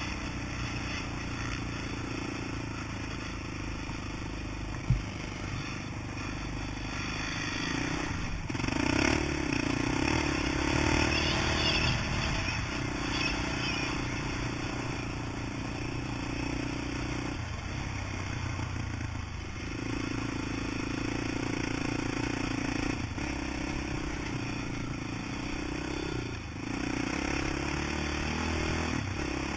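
Honda TRX450R sport quad's single-cylinder four-stroke engine running under throttle, heard from on board, with plenty of clatter and scraping. The engine note steps up and down several times as the rider shifts and changes throttle. There is one sharp knock about five seconds in.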